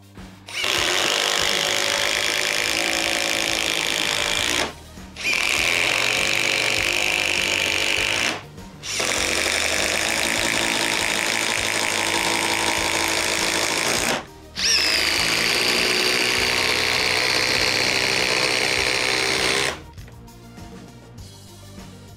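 Cordless impact driver hammering in four runs of about four to five seconds each, with short pauses between them, over quiet background music.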